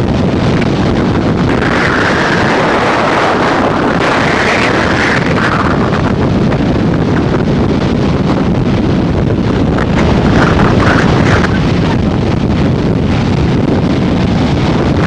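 Strong, gusty hurricane wind buffeting the camcorder's microphone, with surf breaking on the beach underneath.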